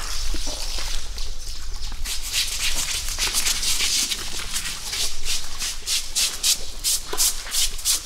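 Scrubbing strokes on an elephant's hide, starting about two seconds in and repeating at about three a second.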